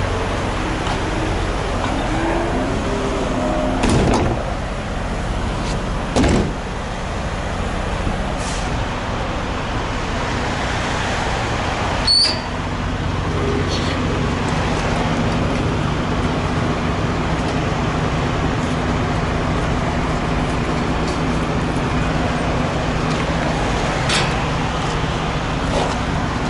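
Heavy diesel truck idling with a steady rumble, broken by a few sharp clunks about 4, 6 and 12 seconds in and again near the end.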